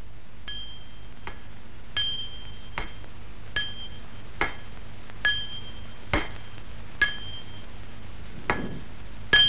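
Light metallic strikes, about one every 0.8 s, many with a short high ring after them, like metal being tapped.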